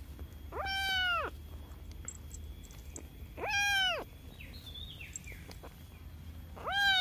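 A young kitten meowing three times, a few seconds apart, each call short and high and rising then falling in pitch.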